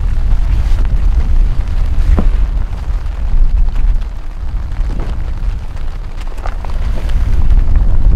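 A loud, uneven low rumble that swells and eases, with a few light clicks and knocks over it.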